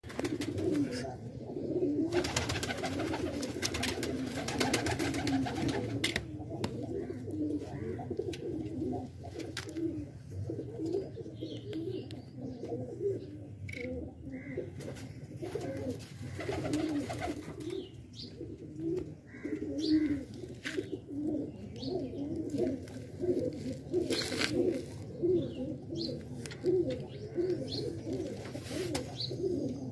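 Flock of dark blue domestic pigeons cooing, many low coos overlapping without a break. A few seconds of broad hissing noise rise over the cooing about two seconds in, and a few sharp clicks come later.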